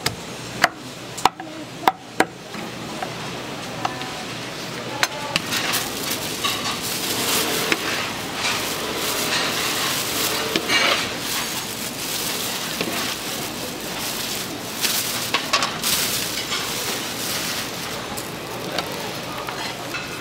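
A knife chopping on a wooden cutting board, a few sharp strokes in the first two seconds, then continuous scraping and rustling with light clatter of utensils.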